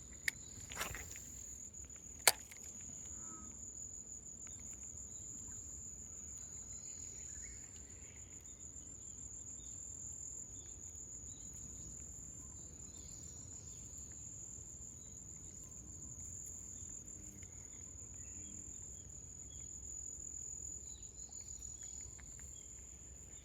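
Steady high-pitched insect trilling that runs on without a break. Two sharp clicks come just after the start and a little over two seconds in.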